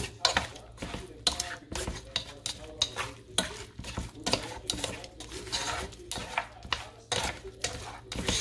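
Wooden chopsticks stirring chicken pieces in a nonstick pot, with irregular clacks and scrapes against the pot several times a second over a light sizzle of the meat frying.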